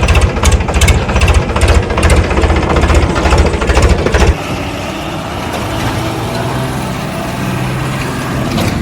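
Heavy vehicle engine chugging hard with a rapid, even pulse, then abruptly dropping about four seconds in to a quieter, steady running hum.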